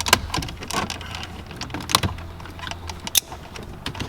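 Plastic interior trim panel being pried out of the console, giving a string of sharp clicks and knocks as its clips let go, over a low steady hum.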